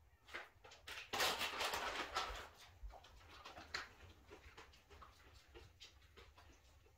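Plastic treat bag crinkling for about a second and a half, then scattered faint ticks.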